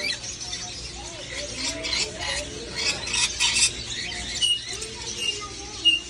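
Many caged parrots and parakeets calling at once, a busy chatter of squawks and chirps. Loud harsh screeches come in the middle, and short high chirps near the end.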